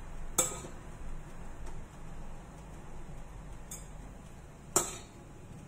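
A metal spoon clinks sharply against a glass bowl twice, about four seconds apart, while diced chicken is scooped out, with a fainter tap just before the second clink.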